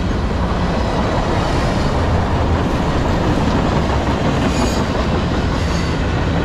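Loaded flatcars of a long CSX freight train rolling past close by: the steady rumble and clatter of steel wheels on the rails.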